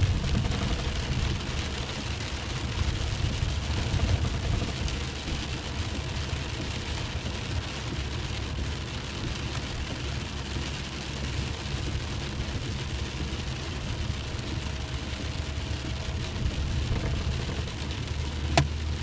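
Vehicle driving: a steady low rumble of engine and tyres with an even hiss over it, and one sharp click near the end.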